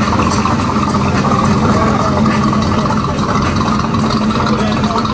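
Car engines running low and steady at idle speed as cars roll slowly past.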